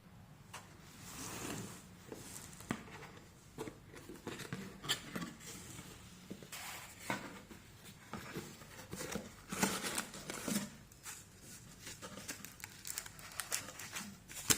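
Handling sounds in a small room: irregular light taps, clicks and rustling, with a few sharper knocks and one sharp click at the very end.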